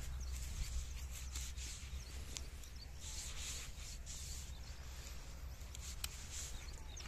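Onions being gathered by hand from dry, clumpy soil: rubbing and scraping of onions against dirt and hand, coming in a few swells, with a few sharp clicks over a steady low rumble.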